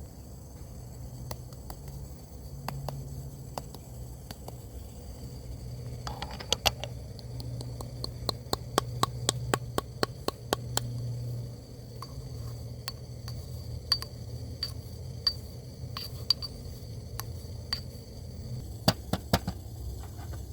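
Sharp clinks and taps of cups and coffee-making utensils, coming in a quick run in the middle and a few more near the end, some ringing briefly, over a low steady rumble.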